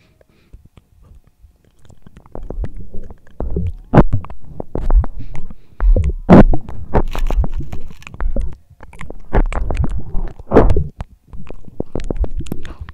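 Close-miked eating: a person biting and chewing food, with wet mouth noises and sharp crunching clicks. It starts about two seconds in and goes on irregularly, with a few louder crunches.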